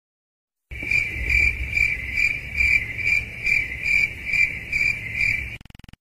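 Stock crickets sound effect, the gag used to mark an awkward silence: a high chirping that pulses about twice a second over a low background rumble. It starts under a second in and stops just before the end.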